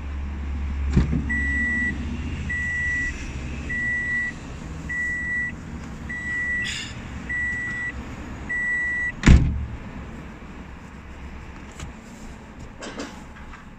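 A car's electronic warning chime beeps seven times at an even pace, a little over a second apart, heard from inside the car over a low hum. A single loud thump about nine seconds in is the loudest sound, and the beeping stops with it.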